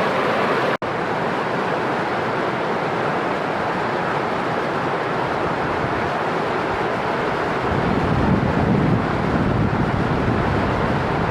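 Waterfall rushing steadily. The sound drops out for an instant less than a second in, and from about eight seconds in a low wind rumble buffets the microphone.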